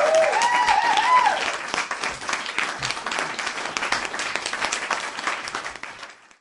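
Crowd applause with a few cheering voices over the first second or so, the clapping slowly dying away and stopping near the end.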